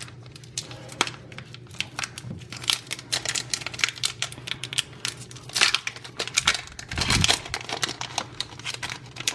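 A Pokémon TCG booster pack's foil wrapper being torn open and handled, crinkling and crackling, busiest in the middle, with a dull bump about seven seconds in.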